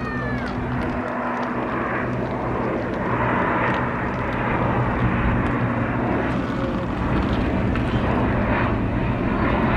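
Jet airliner engines, a continuous rumble that grows gradually louder as the plane comes closer.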